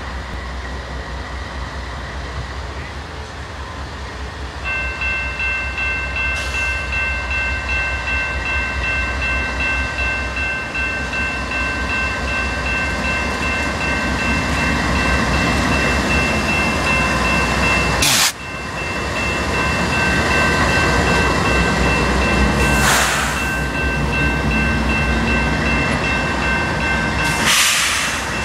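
Canadian Pacific GE AC4400CW diesel locomotives rumbling slowly past at close range, louder as they draw near. From about five seconds in, a level-crossing warning bell rings steadily, and three brief loud bursts of noise cut in during the second half.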